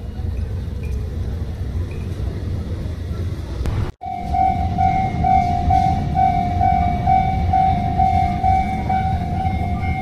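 Rumble of a train on the rails. After a cut about four seconds in, a Japanese level-crossing warning bell rings in quick repeated strokes over the continuing train rumble.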